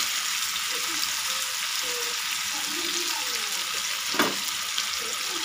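Cornflour-and-spice-coated paneer cubes frying in hot oil in a pan, with a steady sizzle. A single sharp knock comes about four seconds in.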